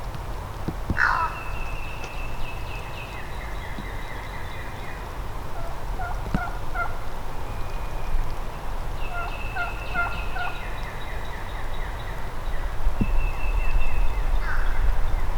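Eastern wild turkey gobbler gobbling, once about a second in and again near the end, with lighter bird calls in between.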